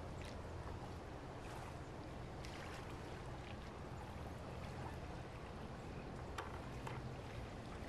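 Steady low drone of a large car carrier's engines as the ship slowly passes close by, with a few faint ticks over it.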